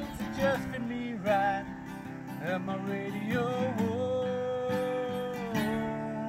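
Acoustic guitar strummed in a country song, with a wordless sung vocal line over it that holds one long note near the end.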